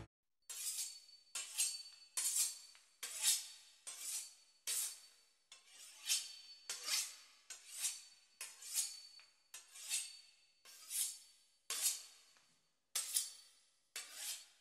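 Knife drawn in repeated sawing strokes through a seared steak, about one and a half to two strokes a second, some in quick pairs.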